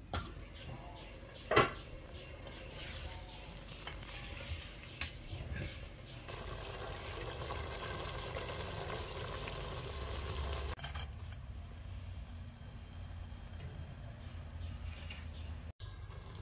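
A few light clinks of kitchenware, then a steady hiss of a steel pot of rice simmering and steaming on the stove for about five seconds, which cuts off suddenly. A low hum runs underneath.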